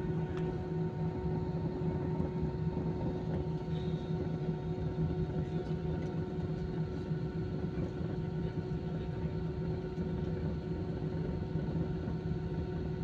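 Cabin noise inside a jet airliner moving on the runway: a steady engine hum and rumble with several constant whining tones, holding even with no rise in pitch.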